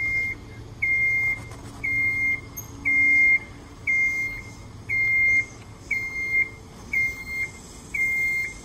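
Motion alarm on a Genie vertical mast personnel lift beeping about once a second, a single high tone, as the lift drives with its platform raised.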